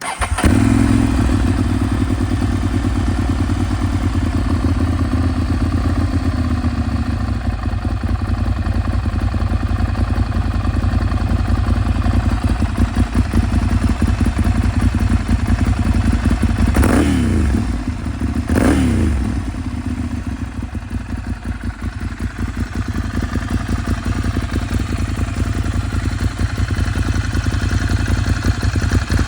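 Ducati Monster 796's air-cooled L-twin idling with an even, lumpy beat through an aftermarket La Bellezza all-titanium silencer, with two quick throttle blips a little over halfway through.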